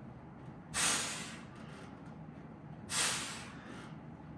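A man breathing out hard with a hiss on each rep of a dumbbell set: two short forceful exhalations about two seconds apart.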